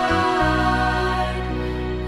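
Slow worship music with sustained chords and a deep bass note that changes about half a second in.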